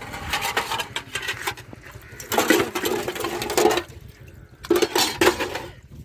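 Dishes being washed: utensils clattering against each other with splashing water, in three bursts with short pauses between them.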